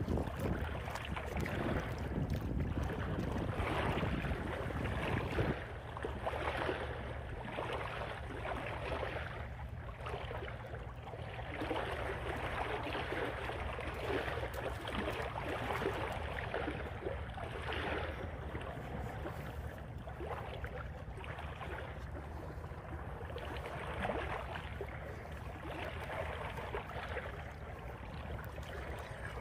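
Small waves washing on the shore, a steady rushing sound that swells and eases every second or two. Wind rumbles on the microphone for the first few seconds.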